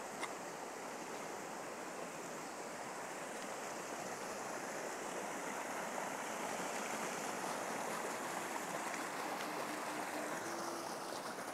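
Shallow stream running over stones: a steady rush of flowing water. About eight seconds in, a faint low held note comes in.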